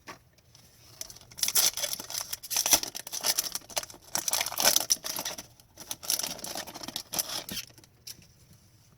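Hockey trading cards and their packaging being handled: a run of quick rustling, flicking and crinkling from about a second in, dying down near the end.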